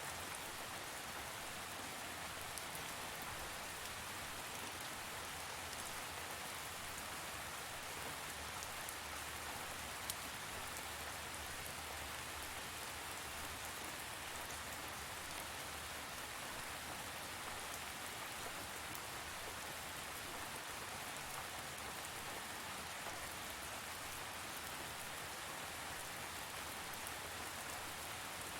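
Steady rain falling, an even hiss with scattered drops tapping on a surface.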